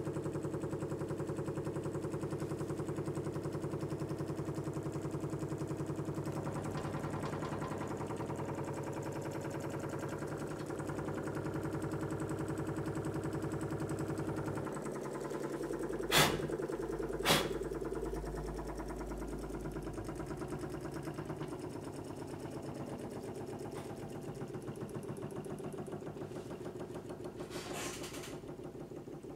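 Homemade tin-can Stirling engine with a balloon diaphragm running steadily at over 600 rpm, an even, rapid mechanical beat. Two sharp knocks about a second apart come a little past the middle.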